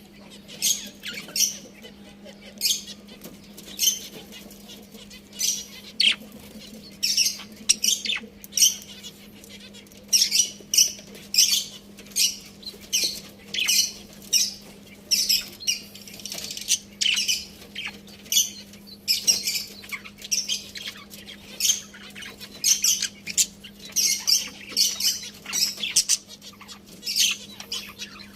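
Budgerigars chirping and chattering in short, high calls that come about once or twice a second, over a faint steady low hum.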